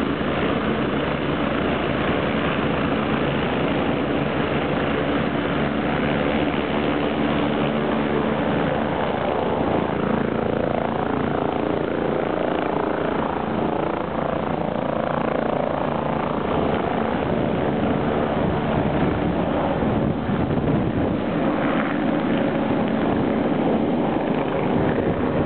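MBB Bo 105S helicopter running with its rotors turning: the whine of its twin Allison 250 turboshaft engines over the rapid beat of the rotor blades. Partway through, power comes up and the helicopter lifts off into a hover.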